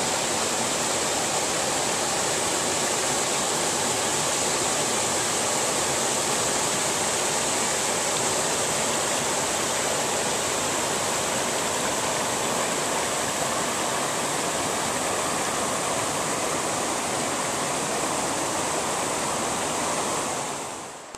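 Water spilling over a low stone dam into a rocky creek: a steady rushing that fades down near the end.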